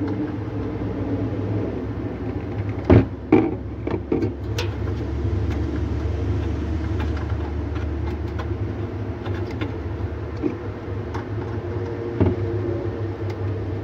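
A steady low hum in the background, with a few sharp metal clicks and taps as a small screw is worked by hand into the defrost heater's clamp on a refrigerator's aluminium evaporator coil. The loudest click comes about three seconds in, with a few lighter ones soon after and one more near the end.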